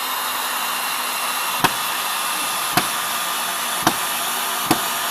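Four sharp hammer knocks about a second apart over a steady rushing machine noise.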